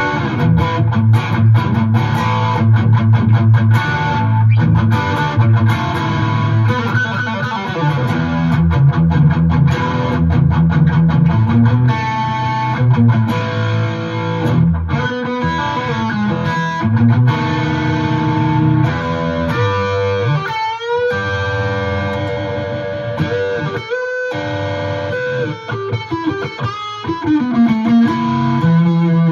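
Blues played on a D'Angelico semi-hollow electric guitar, amplified: a mix of rhythmic chords over low bass-string notes and single-note lines, with a few notes bent in pitch about two-thirds of the way through.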